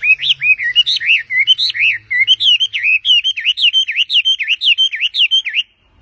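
A Chinese hwamei singing a fast, loud run of whistled notes, each swooping up and down, about four a second, that stops abruptly near the end.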